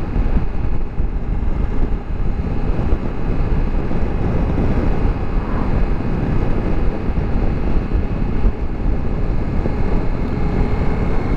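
2024 Ducati Multistrada V4S cruising steadily in fourth gear at about 73 km/h: the V4 engine's hum mixed with steady wind rush over the microphone and road noise.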